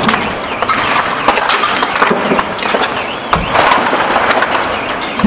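Large building fire crackling loudly, with a dense, irregular stream of sharp pops and cracks.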